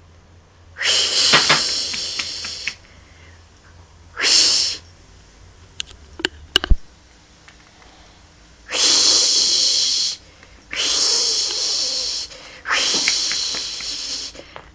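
Cat hissing five times in short, breathy bursts of a second or two each, a defensive hiss at a vacuum cleaner, with a few faint clicks between the hisses.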